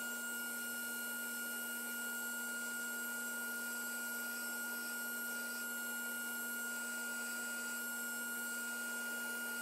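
Belt grinder running on its small-wheel attachment, heard as a steady, even hum with a higher tone over it and no change in pitch or level.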